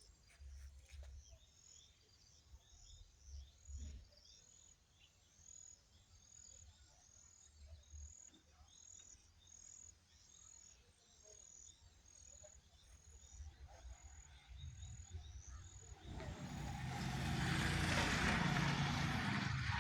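A faint, high chirping call repeats about twice a second. Then, from about three-quarters of the way in, a motor vehicle approaches and grows loud, with a steady engine hum under rushing noise.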